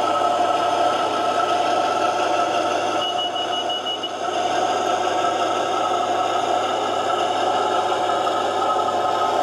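00 gauge model of a Class 52 'Western' diesel locomotive running slowly under DCC control, with a steady humming engine sound. A short, high beep sounds about three seconds in.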